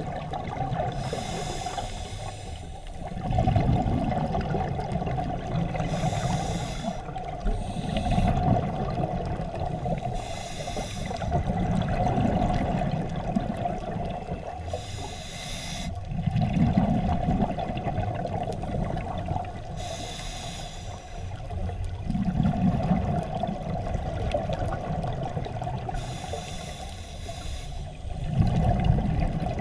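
Scuba diver breathing through a regulator underwater: a hiss on each inhale, then a burst of bubbling rumble on each exhale, in about six slow, even breathing cycles. A steady hum runs underneath.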